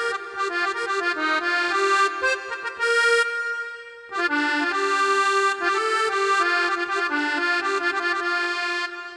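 Korg Krome synthesizer playing a melody over held chords on an accordion voice: two phrases with a brief break about four seconds in, the second ending shortly before the end and fading away.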